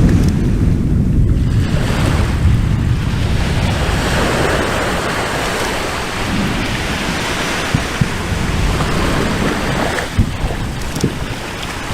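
Loud, continuous rumbling roar of an erupting volcano, with wind buffeting the microphone and a few short sharp pops in the second half.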